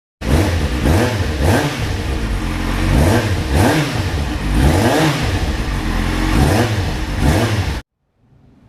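Four-cylinder motorcycle engine, apparently the Kawasaki Z750, being revved over and over in short throttle blips, the pitch rising and falling about once a second. The sound cuts off abruptly near the end.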